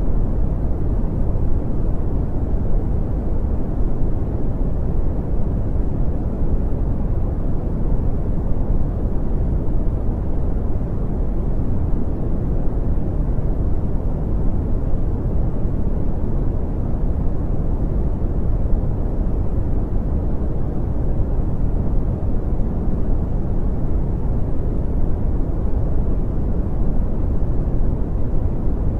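Steady brown noise: an even, deep rumbling hiss, strongest in the bass and falling away in the highs, without change.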